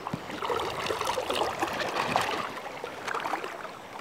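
Fast, shallow river current burbling and splashing around a wading angler's legs, a busy, uneven run of small splashes.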